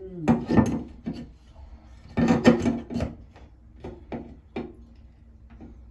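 Metal leaf-shaped wall hook being worked onto a screw head in a wall, scraping and rubbing against the wall and screw in two stretches in the first half, then a few light clicks and taps.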